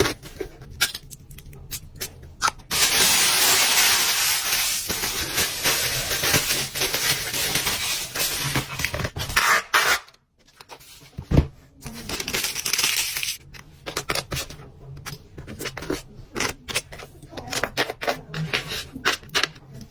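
Small objects and packaging being handled: clicks, taps and rustles, with a steady hiss lasting about seven seconds in the first half and one sharper knock just after the middle.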